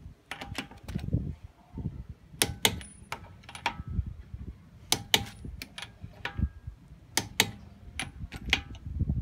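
Sharp metallic clicks of a socket and wrench on a car wheel's lug nuts as they are snugged down at low torque, coming every second or so, often two close together, with a faint ring after some.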